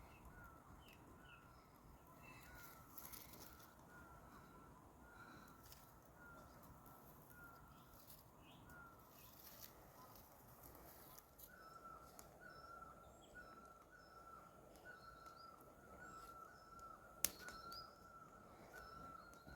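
Faint outdoor birdsong: one bird repeats a short chirp over and over, about one and a half notes a second, with other birds chirping higher in the background. A single sharp click comes near the end.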